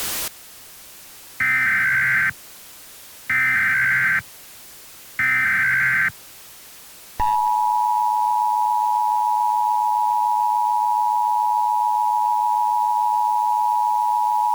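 Emergency Alert System (EAS) alert tones: three short, identical, buzzy SAME header data bursts about two seconds apart, then about seven seconds in the steady two-tone EAS attention signal (853 and 960 Hz) starts and holds, the standard lead-in to a warning message. A burst of static cuts off right at the start.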